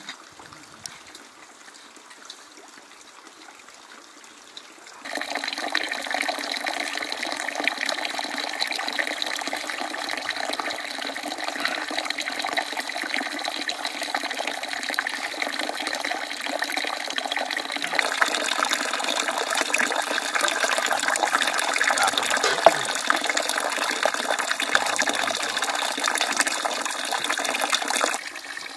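Running water, starting suddenly about five seconds in, getting a little louder partway through and cutting off suddenly near the end.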